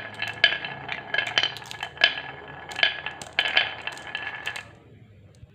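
Marbles clattering down a wooden marble run: a rapid string of clicks and clinks with a ringing note, stopping about four and a half seconds in.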